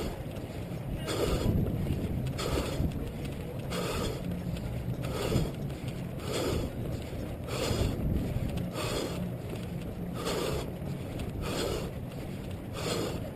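Wind and movement noise on a head-mounted GoPro Hero 2 while running: a steady low rumble, with a soft whoosh repeating about every 1.3 seconds in step with the run.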